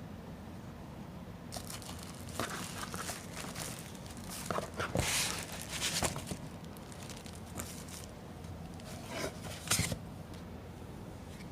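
Packaging being handled and opened: irregular crinkling and rustling of wrapping with a few sharp clicks, loudest in the middle, over a steady low hum.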